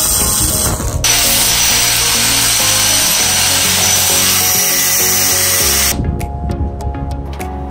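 A power tool running hard over background music, starting suddenly, getting louder about a second in and cutting off sharply near the end.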